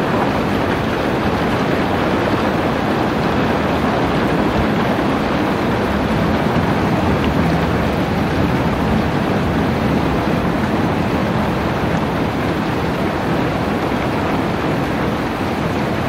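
Steady rain falling, a dense, even hiss without breaks or thunder.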